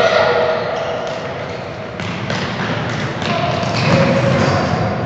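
A futsal ball being kicked and bouncing on a wooden sports-hall floor, a few sharp knocks, with children's voices calling out during play in a large hall.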